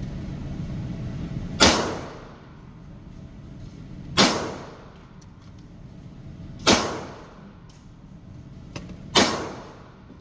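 Four single gunshots fired slowly and evenly, about two and a half seconds apart, each with a short echo trailing off.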